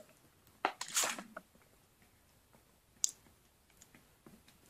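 A person drinking from a plastic sports-drink bottle: a few short swallowing and clicking sounds, the loudest cluster about a second in and a single sharp click about three seconds in.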